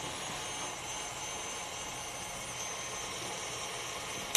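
KitchenAid Classic Plus stand mixer running steadily at speed, beating cheese mixture into stiff egg whites in a glass bowl, a faint high whine over the motor noise. It stops with a sharp click at the very end.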